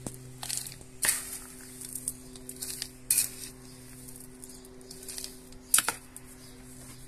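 A metal hand trowel scrapes and scoops gritty potting mix of soil and white grit in a plastic tub and tips it into a plastic pot, giving several short, rasping scrapes and pours. A low steady hum runs underneath.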